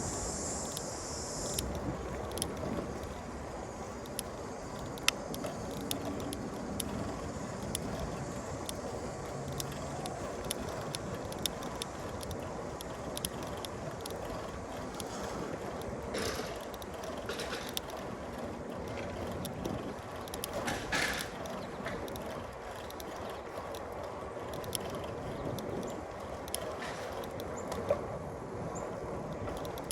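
Bicycle being ridden on a city street: steady tyre and road noise with frequent small clicks, ticks and rattles from the bike's drivetrain and frame, and two brief louder hissing sounds in the second half.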